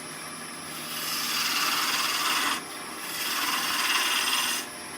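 A turning gouge shaving green wood off a spinning spindle on a wood lathe: two cutting passes, each a hiss lasting about a second and a half, over the lathe's quieter steady running. The wood is green, so it cuts fast and easy.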